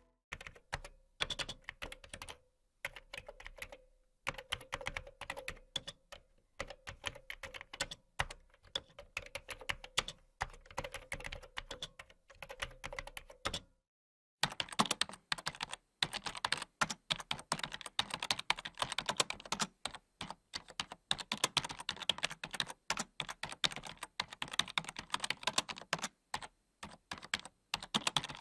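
Computer keyboard typing: fast, irregular key clicks with brief pauses and a full stop of about half a second just past the middle, then quicker, denser typing.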